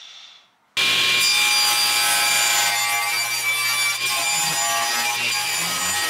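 Table saw ripping a board to trim its edge, the spinning blade cutting steadily through the wood over the hum of the motor. The cut starts abruptly just under a second in, after a short, quieter stretch.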